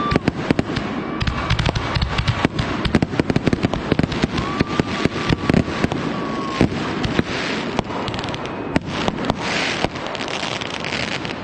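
Fireworks going off: rapid bangs and crackles, with a high steady whistle for about two seconds near the middle, then a denser hissing crackle toward the end.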